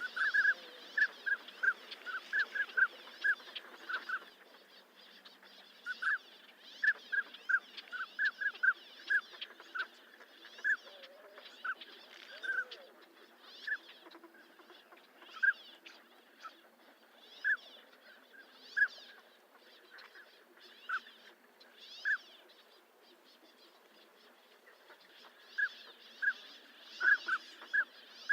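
Northern pintails calling: short, clear whistled notes, each one at nearly the same pitch. They come in quick runs at the start and again near the end, and are spaced out through the middle with a lull a few seconds long. A faint steady hiss lies behind them.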